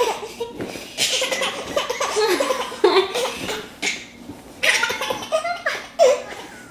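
A baby laughing in several bouts of belly laughter, with short pauses between them.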